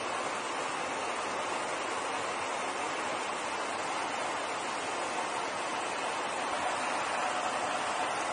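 Steady rushing noise of airflow and jet engines in flight, heard aboard an aerial refueling tanker.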